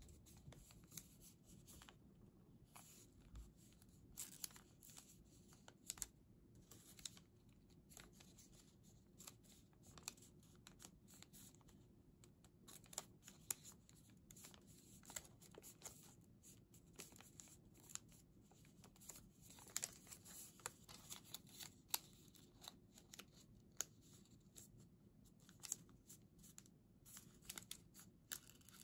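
Faint rustling and crinkling of origami paper being folded and creased by fingers, with many small sharp crackles scattered irregularly throughout.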